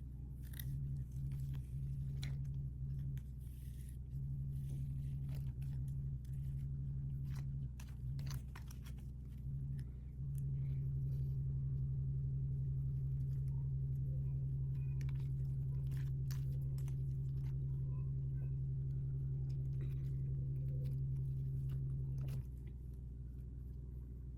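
Small sharp clicks and crinkles of plastic packaging and toy pieces being handled, over a low hum that cuts in and out, then holds steady from about ten seconds in until near the end.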